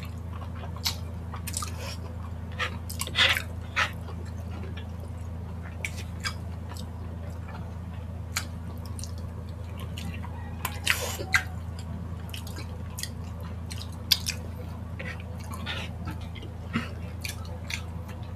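Close-miked wet eating sounds of saucy chicken feet being bitten and sucked: scattered smacks, slurps and short clicks of chewing, over a steady low hum.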